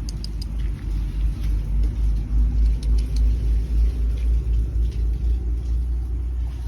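A low, uneven rumble that swells and fades, loudest about two to four seconds in, with a few faint ticks above it.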